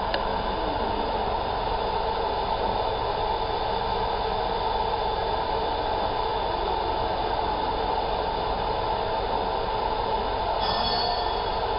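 Steady mechanical running noise of a mirror-scanning laser marking machine at work while it etches a metal sheet, a constant drone with no breaks; a faint higher tone joins near the end.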